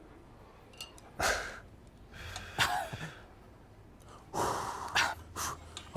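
A few short breathy exhalations or sighs from a person, coming about one, two and a half, and four and a half seconds in.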